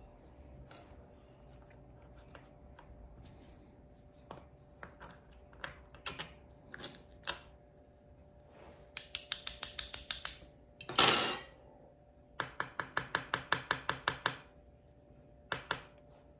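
Small hard tools clicking and tapping against a plastic makeup-pressing mould on a metal tray: scattered single clicks, then two quick runs of rapid clicking around the middle with one louder scrape between them.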